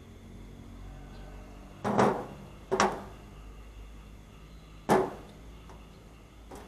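Three sharp knocks or clunks, two close together and a third about two seconds later, each with a short ring, over a low steady hum.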